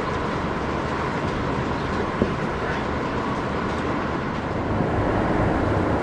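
Steady machinery noise: a continuous low hum and rumble with a faint steady whine on top, as from running barn equipment.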